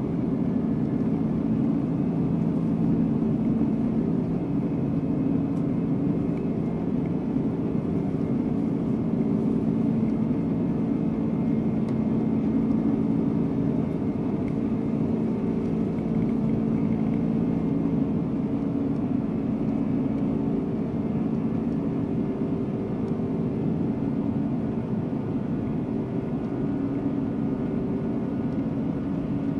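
Cabin noise on the upper deck of a Boeing 747-400 taxiing at low thrust: a steady drone from its General Electric CF6-80C2 turbofans, with a few held low tones and a low rumble.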